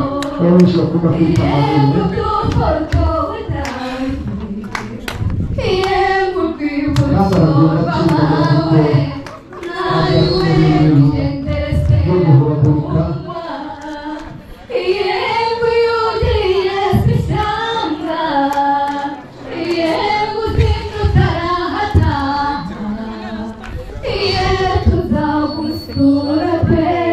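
Women singing into a microphone over a loudspeaker, a group of voices joining in.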